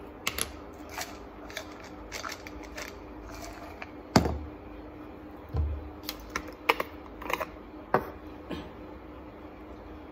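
Plastic supplement bottle being handled and opened, with a scatter of small sharp clicks and rattles from the cap and the pills inside. A louder knock about four seconds in and a duller thud just after stand out.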